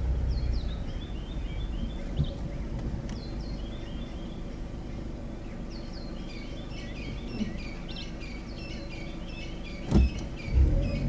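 Birds calling with quick repeated chirps over the low, steady hum of an idling vehicle engine, with two sharp knocks close together near the end.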